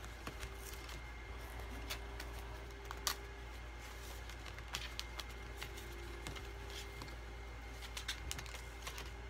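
Pokémon card booster pack being handled and its cards pulled out and sorted: scattered light clicks and rustles of the foil wrapper and cards.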